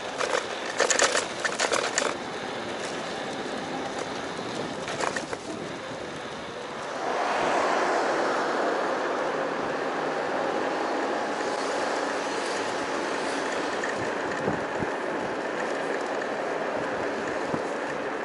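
Road and wind noise while riding a folding electric scooter, with clicking and rattling in the first two seconds and again around five seconds; the noise gets louder about seven seconds in and then holds steady.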